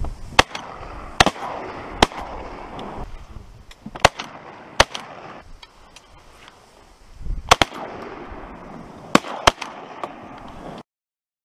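Shotguns firing at flying ducks: about nine shots in quick volleys, mostly in pairs less than a second apart. The sound cuts off suddenly near the end.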